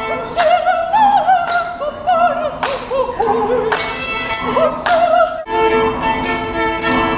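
Operatic singing in a high voice with wide vibrato, over sharp percussive beats roughly every half second. About two thirds of the way in, the voice settles into a long held note.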